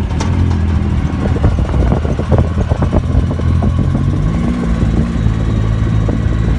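Turbocharged Yamaha YXZ1000 side-by-side's three-cylinder engine running under way on a dirt road, heard from inside the cab, with a clatter of short knocks through the first half. About four seconds in the engine note rises, then holds steady.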